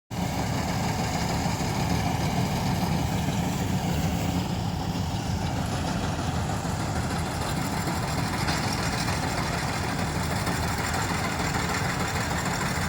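A John Deere combine harvester's engine running steadily.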